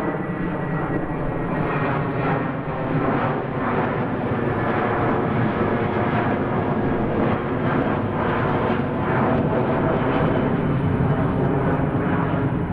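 Airplane engines running steadily in flight: an even, unbroken drone with several faint steady tones running through it.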